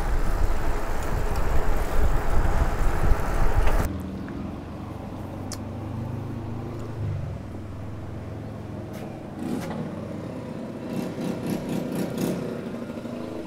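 Wind buffeting the microphone and tyre noise from a bicycle riding on a paved road, with a heavy low rumble. It cuts off abruptly about four seconds in, giving way to a quieter outdoor background with a low steady hum and a few faint clicks.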